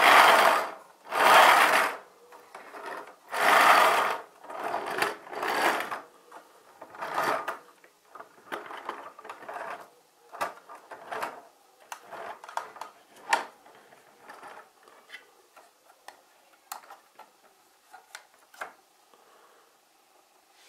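Plastic building-block toy truck rolled back and forth across a wooden tabletop, its wheels whirring in about five long passes over the first six seconds. After that come short plastic clicks and knocks as the truck and its container door are handled.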